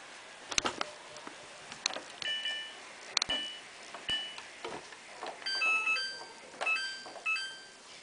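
Samsung washing machine control panel beeping as the program dial is turned and the settings buttons are pressed, with sharp clicks from the dial and buttons. Near the end comes a quick run of short beeps at several different pitches.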